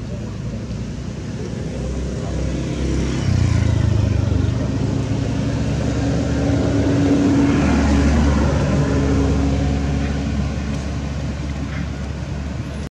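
A motor vehicle's engine running and passing, growing louder a few seconds in and fading toward the end.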